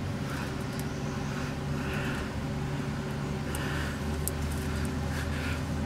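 Kohler engine of an old Simplicity lawn tractor running steadily at a constant speed, with a few faint ticks and light handling rustles over it.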